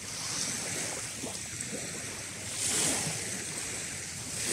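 Small waves washing onto a shingle beach, a hissing surge over the pebbles swelling about two and a half seconds in and again near the end.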